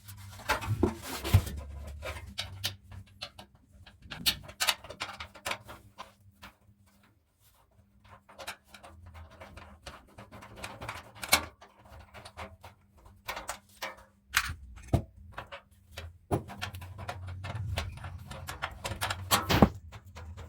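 Irregular clicks, knocks and scrapes of hand work on an old electric fan's parts, with a quieter pause midway, over a faint steady hum.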